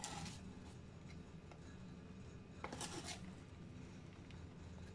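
Faint, brief scraping of a teaspoon scooping baking powder from its tub and tipping it into a bowl of flour, twice, over a low steady room hum.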